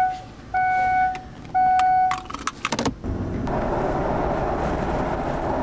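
Three electronic beeps of about half a second each, then a quick rattle of clicks, then steady engine and road noise inside a moving car.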